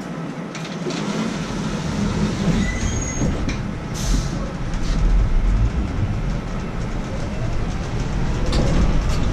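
A large vehicle running close by: a low rumble that comes up about a second in and holds, with brief faint high squeals around three seconds in.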